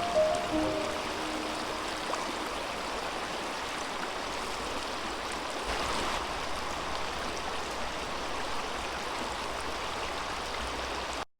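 Creek water running steadily over stones, a continuous rushing flow that cuts off abruptly near the end.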